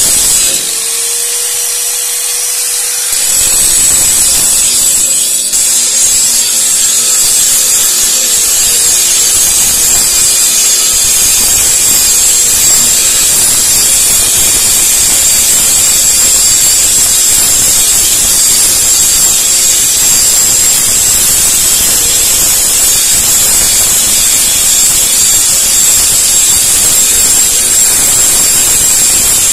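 Handheld electric angle grinder grinding the steel blade of a chaff cutter to sharpen its edge: a loud, steady grinding hiss of the disc on the metal. For the first three seconds it is quieter with a steady hum, then the full grinding noise sets in and holds.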